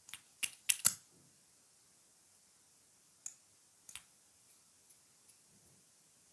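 Sharp clicks: four in quick succession in the first second, then two more single clicks about three and four seconds in, and a few faint ticks after.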